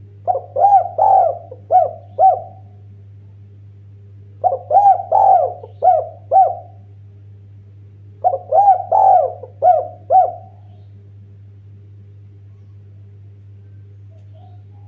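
Spotted dove cooing: three phrases of four or five rounded coo notes, each phrase about two seconds long, repeated every four seconds or so over a steady low hum.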